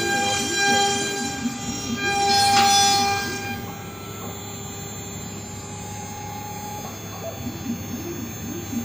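Axiom Elite AR8 CNC router running a machining job: the spindle gives a steady high whine over the whir of the axis drives. A brief rougher surge of cutting noise comes about two and a half seconds in, and the whine and noise drop off about a second later.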